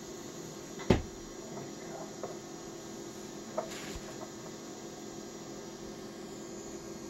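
Steady electrical hum on an old home-video soundtrack, with one sharp knock about a second in and a softer click a few seconds later.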